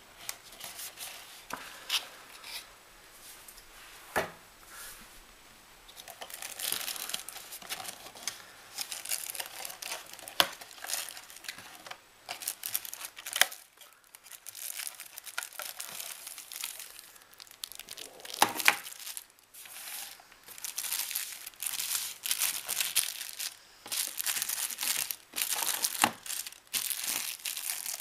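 Cardboard packaging being handled and opened, with scattered sharp clicks and knocks. In the second half a clear plastic bag crinkles steadily as the packaged dock is drawn out and handled.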